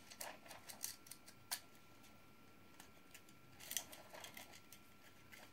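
Faint clicks and taps of 3D-printed plastic parts being handled and fitted together. There is a cluster of sharp clicks in the first second and a half and another about four seconds in.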